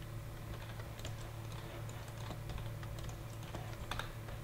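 Scattered light clicks of computer keyboard keys and mouse buttons, a few irregular taps over a steady low hum.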